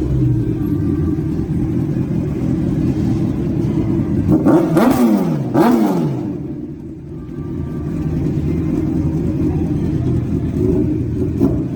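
Car engine running, with two quick revs about halfway through, the pitch rising and falling back each time, then settling back to a steady rumble.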